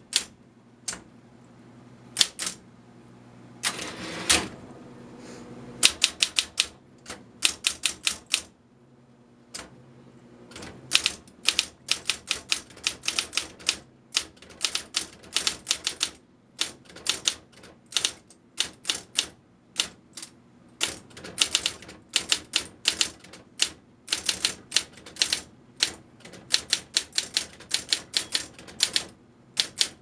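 Sears Best Corrector electric typewriter, a Brother-made type-bar machine from about 1978, being typed on: runs of quick key and type-bar strikes with short pauses between words. A longer, noisier mechanical sound comes about four seconds in. The motor hums steadily underneath.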